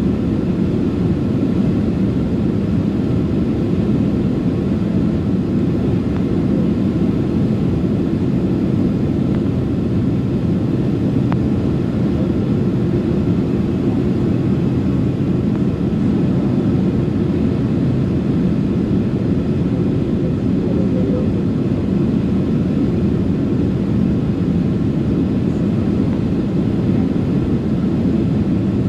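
Steady, even cabin noise of a Boeing 767-300ER airliner in flight on approach: engine and airflow drone heard from inside the cabin, deepest in the low range, with faint steady engine tones.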